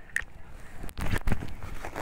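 Handling noise from a gloved hand on a fishing rod and spinning reel right at the microphone: a few irregular knocks and rubbing sounds, most of them about a second in.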